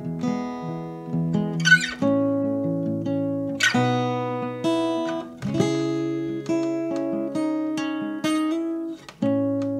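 Background music: an acoustic guitar strumming chords, with the chord changing every second or two.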